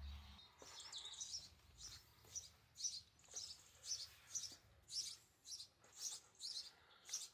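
House sparrow chirping over and over, short high chirps at about two a second.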